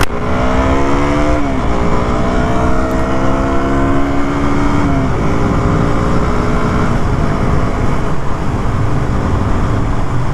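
KTM Duke motorcycle accelerating through the gears, heard from the rider's seat: the engine note climbs, drops with an upshift about a second and a half in and again around five seconds, then holds steady, over a rush of wind and road noise.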